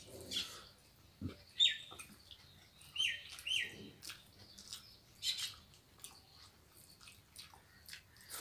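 Three short, high bird chirps, each dropping quickly in pitch, about one and a half, three and three and a half seconds in. Under them are soft lip-smacks and chewing clicks from eating rice by hand.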